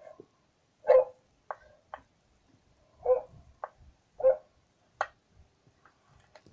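Dogs barking in short, separate barks, about seven of them, the loudest about one, three and four seconds in.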